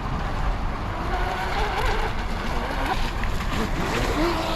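Wind rumbling on the microphone, with the faint whine of a 4S electric RC speedboat out on the water, rising and falling in pitch as it changes speed.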